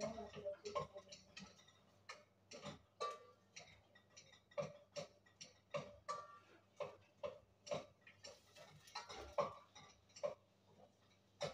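Wooden spatula knocking and scraping against a stainless steel pot while stirring onions frying in oil: irregular sharp clicks, one or two a second. A faint steady low hum runs underneath.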